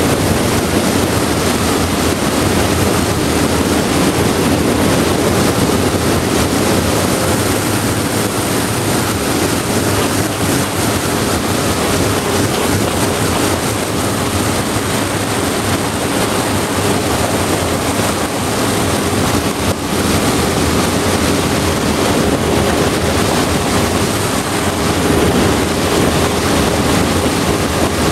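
A boat under way on the river: a steady motor drone mixed with rushing water and wind buffeting the microphone.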